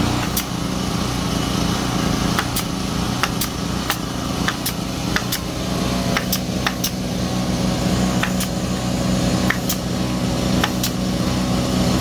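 Pneumatic staple gun firing fasteners into an OSB board, about fifteen sharp shots at uneven intervals, over a steady machine hum.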